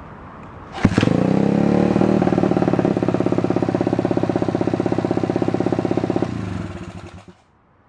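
Pit bike's single-cylinder engine kick-started, catching about a second in and rising briefly in pitch, then running steadily at idle with an even pulsing beat. Near the end it is shut off and runs down to a stop.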